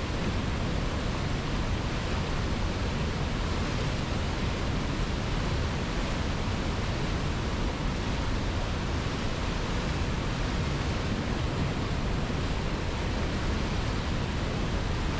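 Steady, even rushing of river water, an unbroken hiss with no individual splashes or changes.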